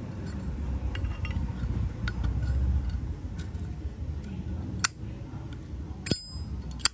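Zippo lighter's hinged lid being flicked and snapped: three sharp metallic clicks in the second half, the last two with a brief high ring, over a low background rumble.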